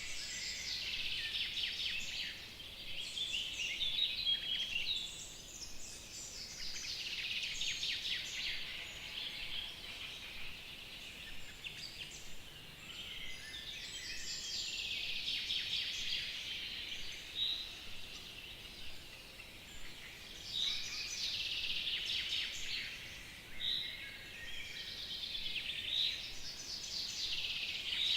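A chorus of spring songbirds singing together: many overlapping high chirps, trills and whistles, continuous and never pausing, over a faint steady outdoor hiss.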